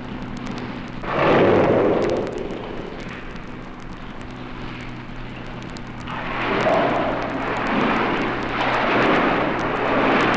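Hippopotamus snorting: one loud blast about a second in, then a longer run of repeated snorts from about six seconds on.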